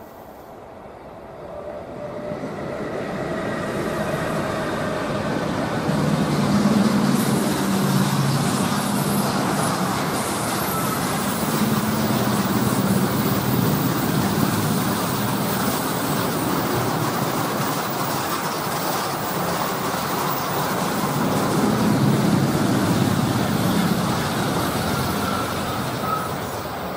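Rolling-highway (RoLa) freight train, hauled by two BLS Re 485 electric locomotives, passing close by. Its wagons carrying lorries make a steady rolling rumble over the rails that builds over the first few seconds. A low hum rises and falls within it, and it starts to fade near the end.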